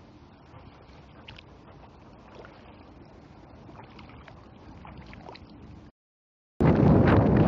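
Faint lapping and small splashes of shallow floodwater with a few light clicks. Near the end the sound drops out for a moment, then a loud low rumble of wind and handling noise on the microphone takes over.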